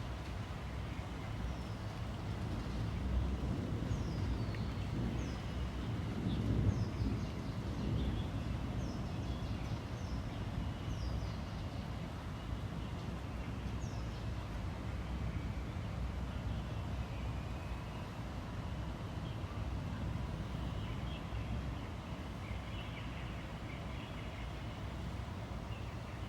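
Outdoor rain ambience: a steady hiss with a low rumble of distant traffic. Birds call in short, falling chirps through the first half, with other calls later on.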